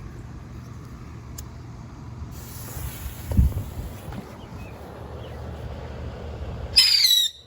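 Phantom whistling bottle rocket launching near the end with a short, loud, high whistle that wavers in pitch, over a steady low background rumble. A single dull thump about three and a half seconds in.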